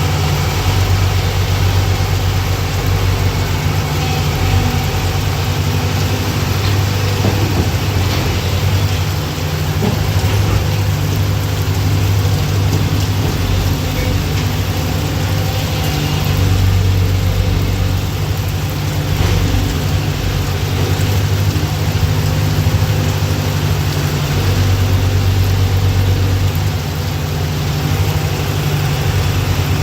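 Hyundai R215L crawler excavator's diesel engine running, its low note swelling and easing every few seconds as the machine works, over a steady hiss.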